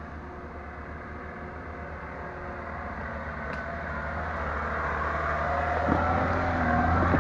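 A car engine running steadily and growing louder as the vehicle draws near, with a couple of dull knocks near the end.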